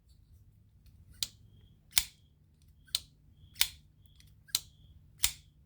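Twosun TS328 folding knife being worked by its small flipper tab: a run of about six sharp metallic clicks, a little under a second apart, as the blade snaps open and shut.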